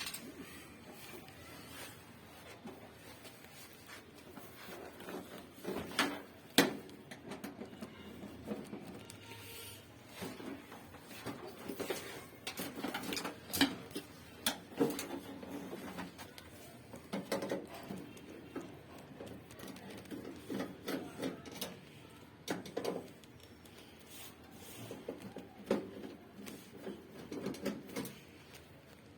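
Irregular clicks, taps and light knocks of tools and casing parts as a gas heater is taken apart by hand, with a few sharper knocks spread through.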